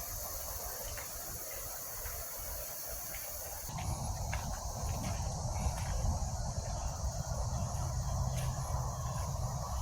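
Steady high chirring of insects such as crickets. About four seconds in, a louder low rumbling noise joins it and stays, with a few faint clicks over it.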